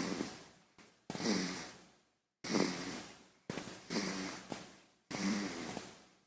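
A baby snoring: about five short snuffly breaths, one every second or so, each starting sharply and fading away.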